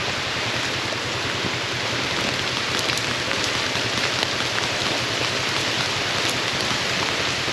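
Steady rain falling, a constant hiss with a few faint drop ticks.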